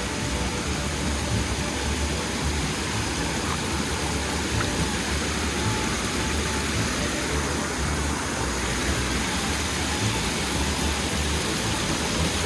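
Steady rushing of water from a small waterfall and creek rapid, an even, constant noise.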